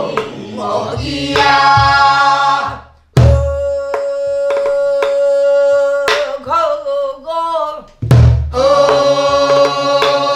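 A woman singing a Korean southern folk song (namdo minyo) in long held notes that waver in pitch, accompanying herself on a buk barrel drum struck with a stick. Heavy drum strokes come right after short breaths about three and eight seconds in, with lighter strokes between.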